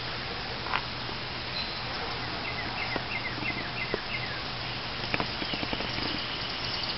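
A quick series of about seven short, high chirps in the middle, over steady hiss and a low hum, with a few soft knocks scattered through.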